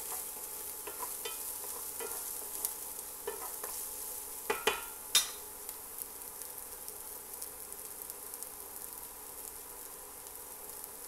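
Diced onion and garlic sizzling gently in olive oil in a nonstick frying pan. A wooden spoon stirs and taps through the first few seconds, and two sharper clicks come about five seconds in as the spoon is set down on a metal spoon rest.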